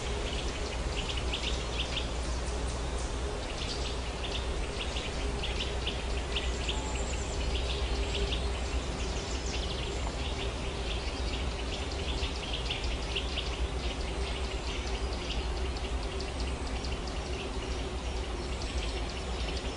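Steady outdoor ambience: a constant rushing noise with a deep low rumble, over which high, rapid chirping trills repeat throughout.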